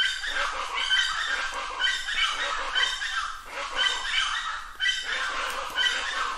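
Plain chachalaca calling, its phrases repeated about once a second.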